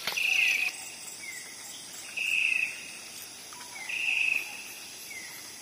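Insect calling in short, loud, buzzy trills about every two seconds, each trill followed by a brief falling chirp, over a faint steady hiss.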